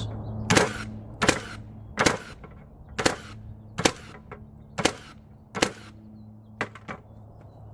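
Ryobi 18-volt brushless 21-degree cordless framing nailer firing in multi-fire (bump) mode, driving 3-1/4-inch framing nails into wood: eight sharp shots, roughly one a second.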